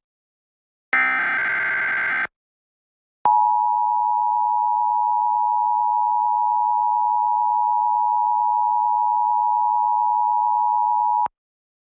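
Emergency Alert System test signal. First comes the last burst of the SAME digital header, a data burst of about a second and a half. After a short pause the two-tone attention signal (853 and 960 Hz) sounds steady for about eight seconds, then cuts off abruptly.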